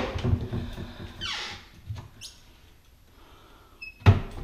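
Wooden kitchen cabinet doors being worked by hand: a dry hinge squeaks, one squeak sliding quickly down in pitch about a second in and a shorter one near the middle. A sharp wooden knock from a cabinet door comes near the end.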